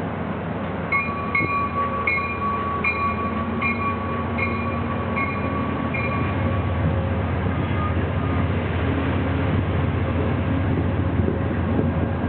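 Commuter train with a Genesis P40DC diesel locomotive pulling out, its engine giving a steady low rumble. A bell rings about once every three-quarters of a second for the first half, then stops. The rumble grows a little louder toward the end.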